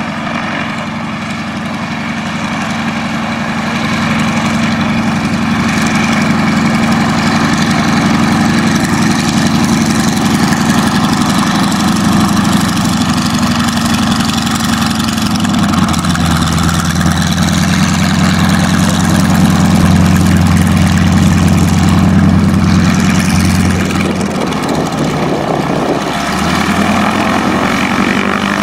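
North American AT-6 Texan's nine-cylinder Pratt & Whitney R-1340 radial engine and propeller running at taxi power as the plane rolls across the grass, getting louder over the first few seconds. The engine note shifts about halfway through and dips briefly about four seconds before the end.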